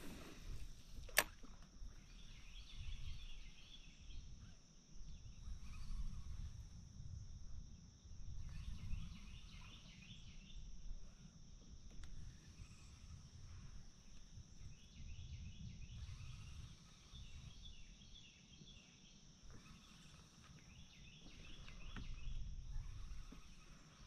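Quiet riverside ambience: a steady high insect drone with repeated bursts of chirping every few seconds, over a low rumble. A single sharp click about a second in.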